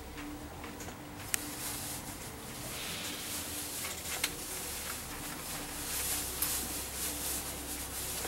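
Steady running noise inside a moving coach, a low drone and a hiss, with light rattles and two sharp clicks.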